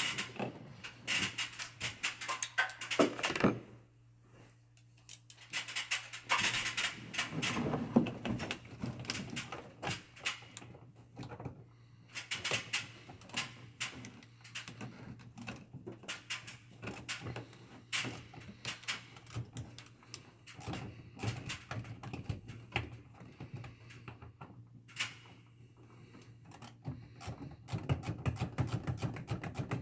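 Irregular clicking, tapping and rattling of hands working plastic and metal parts around the PCM at the firewall of a truck engine bay, with a quieter pause a few seconds in and faster ticking near the end.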